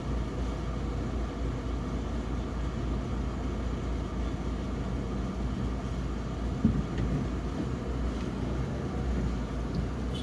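Steady low rumble of a car idling and creeping forward in stop-and-go traffic, heard from inside the cabin, with a single short thump about six and a half seconds in.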